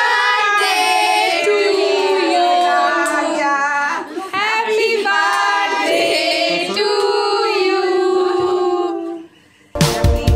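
Women and children singing together. The singing stops a little after nine seconds in, and after a brief gap recorded music with a beat cuts in suddenly near the end.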